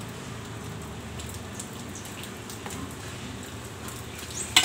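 Soft handling sounds of potting a plant: soil being pressed into a pot with faint ticks, then a brief sharp scraping clatter near the end as the garden trowel and soil are handled.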